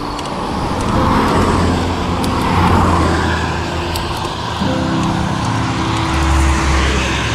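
A motor vehicle passing on the road: tyre and engine noise swells and fades, then a steady engine hum sets in about halfway through.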